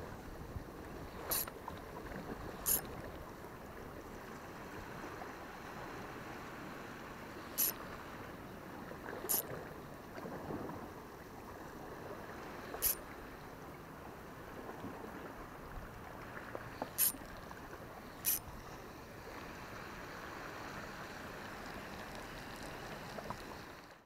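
Steady wash of the sea against a rocky shore, with wind on the microphone. About seven short, sharp ticks break it at uneven intervals a few seconds apart.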